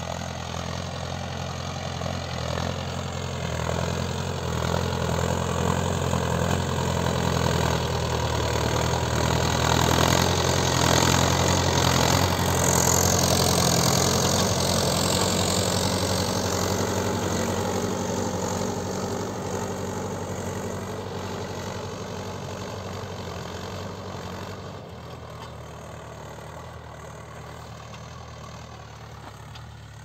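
Mahindra Yuvo Tech+ tractor's diesel engine running steadily under load as it pulls a three-bottom mouldboard plough. It grows louder as the tractor comes close around the middle, then fades away over the last several seconds.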